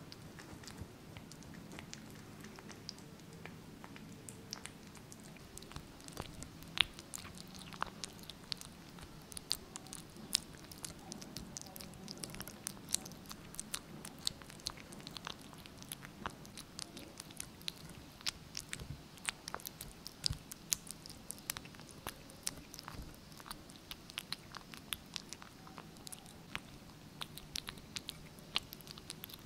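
A kitten eating wet cat food from a stainless steel bowl, heard close up: a steady run of small, quick wet chewing and licking clicks and smacks.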